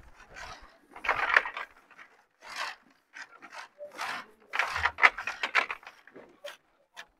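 Tiger nuts being rubbed by hand against a large woven basket to scour off the dry soil without water: a run of short, irregular rough scraping strokes.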